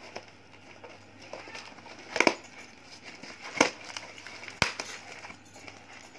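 A parcel being handled and opened: light rustling broken by three sharp clicks or knocks, about two, three and a half and four and a half seconds in, the first two the loudest.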